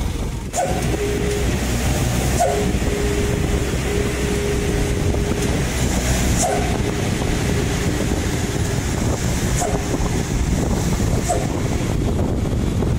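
Steady rumble of wind buffeting the microphone and bicycle tyres rolling on a concrete road while riding, with a faint steady hum through the first half.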